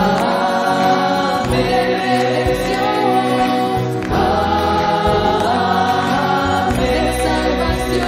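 A congregation singing 'Amén' together in long held notes, a new phrase starting about halfway through, over a steady low instrumental accompaniment.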